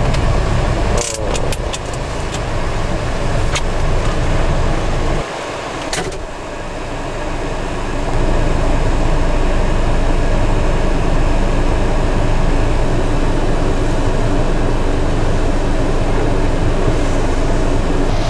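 Loud, steady rumble of typhoon wind buffeting the microphone over pounding surf, with a few sharp clicks about one to two seconds in and again around six seconds.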